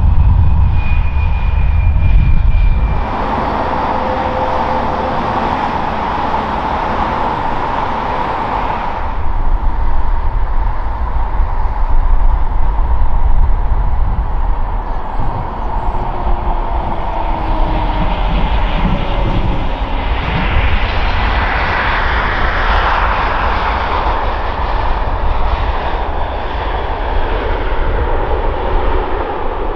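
Airliner jet engines: an Embraer E170 taxiing, then an Air France Airbus A320 with CFM56 turbofans on final approach and landing. A steady whine over a low rumble, with a broad rush of noise swelling about two-thirds of the way through.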